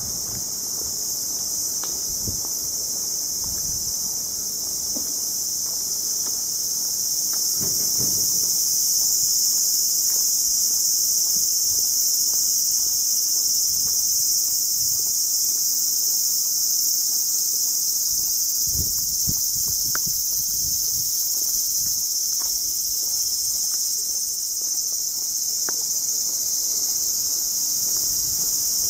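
Cicadas singing in a steady, high-pitched chorus that grows a little louder about eight seconds in, with a few faint low thumps.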